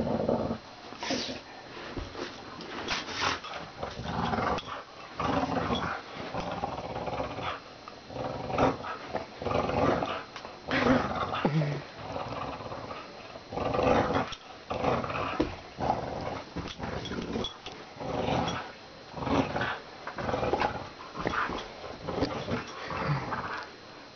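A dog growling in repeated bouts, roughly one every second or so, while it pulls on a tug toy: a play growl during tug-of-war.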